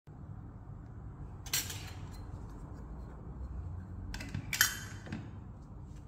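A thin metal square badge shell being handled and set into the plastic die of a button badge press, clinking and scraping. There is one short scrape about a second and a half in, then two more clinks around four and a half seconds, the second the loudest.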